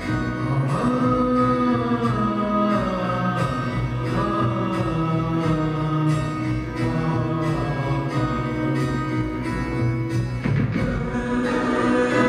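Live band music, a slow song of keyboards and guitar under sung vocals holding long notes, heard through the hall from the audience.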